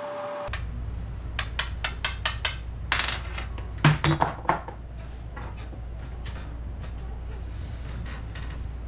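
Metal carburetor parts clicking and clinking as they are handled and set down on a wooden table. There is a quick run of sharp clicks in the first half, the loudest about four seconds in, then only a few faint ticks.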